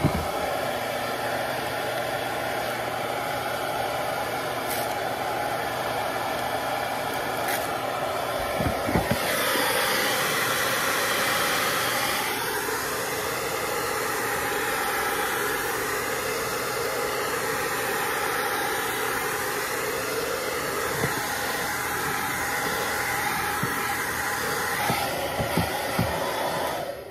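Handheld electric hair dryer blowing steadily on its heat setting, warming the 3M adhesive tape on a pad so that it will bond. The tone of the airflow changes a few times.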